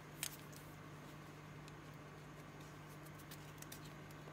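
Faint room tone with a steady low hum, broken by a sharp click about a quarter second in and a few softer ticks near the end.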